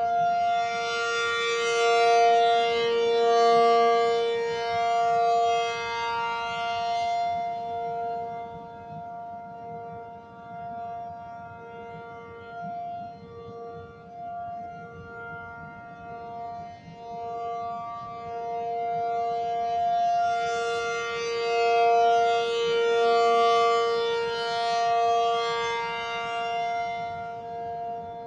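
ACA P-50 outdoor warning siren sounding a steady alert tone. Its loudness swells and fades as the rotating horn sweeps past: loudest a couple of seconds in, softer through the middle, and loud again a little past twenty seconds in.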